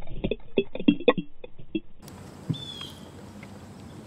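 Muffled knocks and clicks picked up by an underwater camera near a boat hull. About halfway through, the sound changes to open-air water and wind noise, with one knock and a single short, falling bird chirp.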